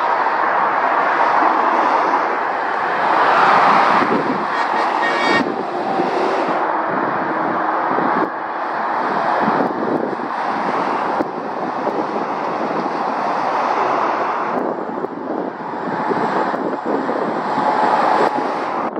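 Steady traffic noise of lorries and cars passing on a dual carriageway: tyre roar and diesel engine noise that swells as trucks go by and shifts abruptly several times.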